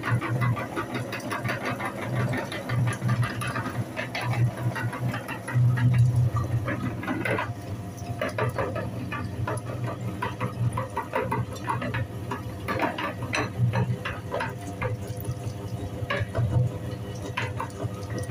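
Electric meat grinder running with a steady motor hum while its auger crushes bars of soap, with constant crackling as the shreds are pushed out through the grinder plate.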